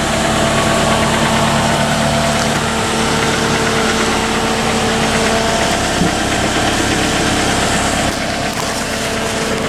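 A vehicle's engine running steadily with a constant hum, briefly dropping in loudness about eight seconds in.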